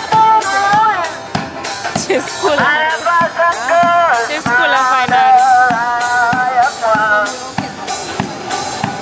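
One-man band busker playing: a banjo with a steady bass-drum beat about twice a second, under a wavering lead melody.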